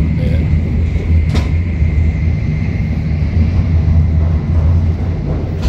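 Shinkansen bullet train running, heard from the vestibule between cars: a steady, loud low rumble with a faint steady high whine over it, and a single click about a second and a half in.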